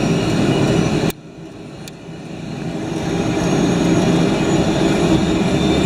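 Helicopter cabin noise: a steady engine whine and rotor drone. About a second in there is a click and the noise drops sharply, then it swells back up to full level over the next few seconds.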